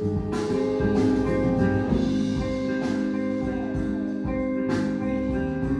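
A band playing: drum hits under steady held notes and chords, cutting off suddenly at the end.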